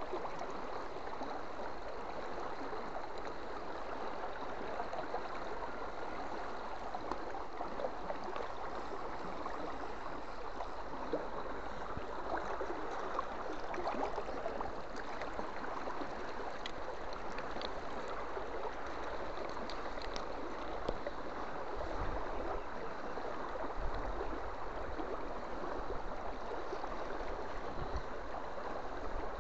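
Shallow river running steadily over a stony bed, with a few faint clicks partway through.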